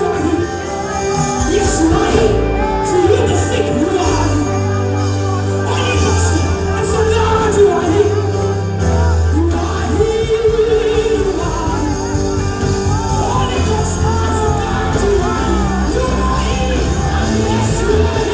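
Worship music with singing over a band's held bass notes, with occasional shouts.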